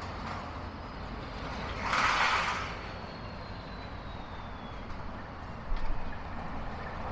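Steady rumble of highway traffic, with a loud hiss lasting about a second, some two seconds in.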